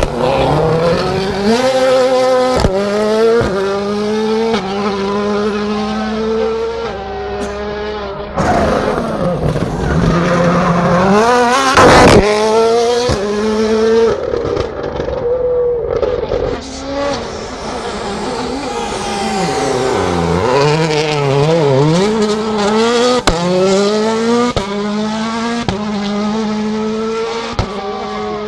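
Rally cars passing one after another at full speed, starting with an M-Sport Ford Fiesta WRC: their 1.6-litre turbocharged four-cylinder engines rev hard, their pitch climbing and dropping with each gear change. The loudest pass comes about twelve seconds in.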